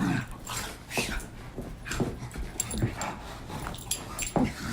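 A house cat making short whining cries, with light clicks and knocks in between.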